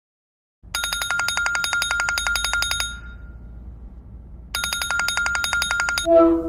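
Telephone ringing twice, each ring a rapid pulsing trill about two seconds long with a short pause between, followed near the end by a brief lower tone.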